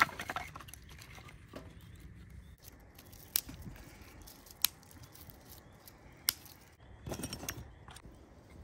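A few sharp snaps or clicks, one at a time and a second or more apart, over a low steady rumble, with a short stretch of rustling near the end.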